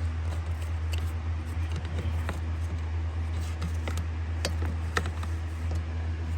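A few sharp plastic clicks and knocks as the cabin air filter's plastic cover is handled and its tabs are lined up, over a steady low hum.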